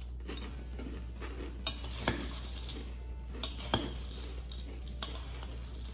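Metal spoon stirring and scooping through chocolate cereal balls and milk in a glass bowl, with a few sharp clinks against the glass near the middle, over soft chewing of the crunchy cereal.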